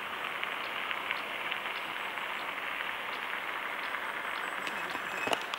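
Horse walking on a wet asphalt road, its hooves giving faint, irregular clops over a steady hiss, with one sharper clop near the end.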